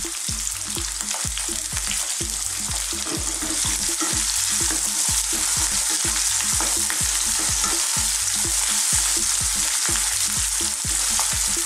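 Sliced onions and ginger-garlic paste sizzling in hot sunflower oil in a non-stick wok. A wooden spatula stirs and tosses them throughout, with frequent small scrapes and taps against the pan.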